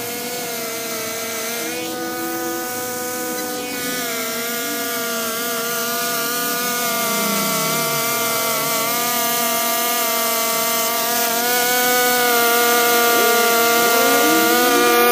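Two-stroke gas string trimmer running at a steady high speed as it cuts overgrown grass along a sidewalk edge, growing gradually louder as it comes closer.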